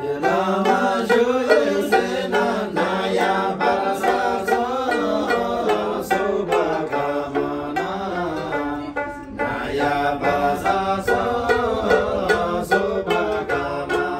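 Men singing a Nepali folk song together, accompanied by two plucked long-necked Himalayan lutes of the dramyin type with skin-covered bodies.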